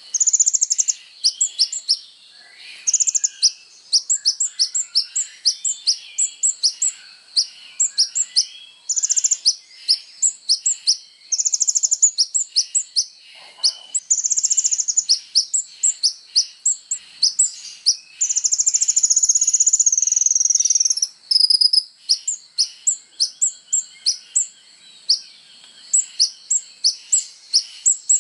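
Kolibri ninja sunbird singing in a fast, high-pitched chatter of short chirps, broken by several longer buzzy trills, the longest lasting about three seconds.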